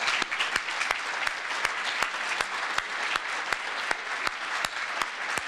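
Audience applauding: many hands clapping together in a steady patter, with a few louder single claps standing out.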